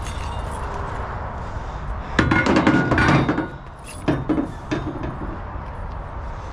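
Metal clanking and clinking of flatbed securement hardware being handled: a dense run of knocks about two seconds in, then two sharper knocks a second or two later, over a steady low rumble.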